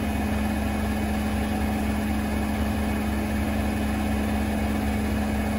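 Beko front-loading washing machine running, its drum turning at a steady speed with a constant motor hum and one steady tone.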